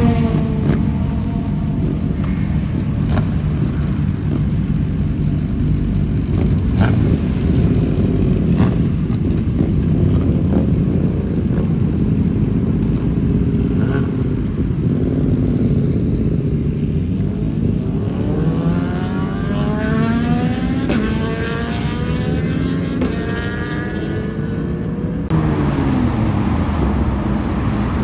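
BMW S1000RR-family superbike engines, inline-fours with Akrapovic exhausts, running over a steady low rumble, with a few sharp cracks in the first ten seconds. In the second half the engine note climbs again and again as bikes rev and accelerate away, and the sound changes abruptly about 25 seconds in.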